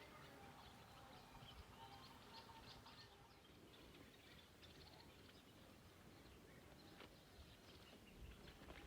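Faint outdoor ambience: scattered bird chirps, mostly in the first half, over a soft steady hiss.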